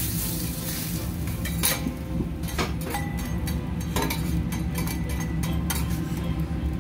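Metal teppanyaki spatula and knife tapping and scraping on a steel griddle as steak pieces are cut and moved: several sharp metallic clinks about a second apart, over a steady low hum.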